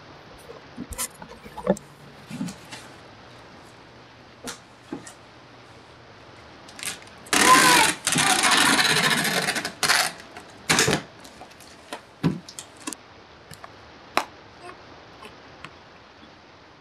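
Packing tape pulled off a handheld tape gun along the seam of a cardboard box: a loud tearing screech starting about seven seconds in and lasting a couple of seconds, then a shorter rip a second later as the tape is cut. Light knocks and taps from handling the box come before and after.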